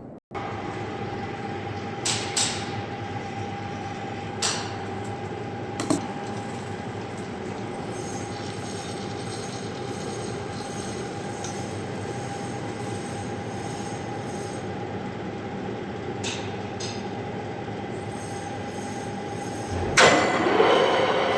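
Gear head lathe running with a steady whine, its cutting tool working a metal flange, with a few short scrapes and clicks. Near the end it gets louder, with a higher screech of tool on metal.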